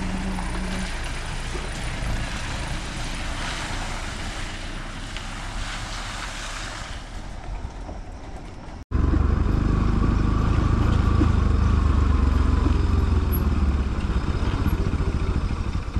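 A pickup truck's engine passing and fading into a steady rushing noise, then, after a sudden cut a little before halfway, a motorcycle being ridden down a rough dirt track, heard from the rider's seat as a loud low engine-and-wind rumble.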